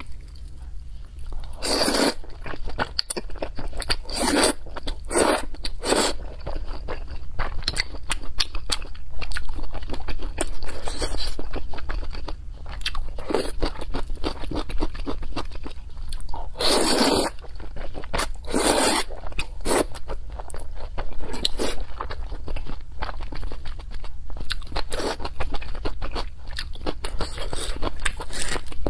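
Close-miked mouth sounds of a person eating thick noodles in chili sauce: steady wet chewing with many small clicks, broken several times by louder half-second slurps or bites.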